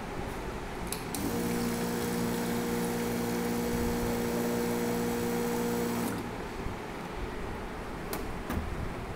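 A digital liquid filling machine's pump runs one timed fill of about five seconds: a steady hum with the hiss of liquid streaming into a plastic bottle. It starts with a click about a second in and cuts off cleanly. A couple of light knocks come near the end as the filled bottle is set down.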